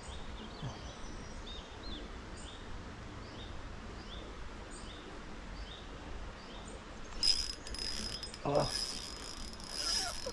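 Spinning reel's drag buzzing as a hooked trout strips line, starting suddenly about seven seconds in as a steady high whine over a rasping buzz. Before it, only faint background with small repeated chirps.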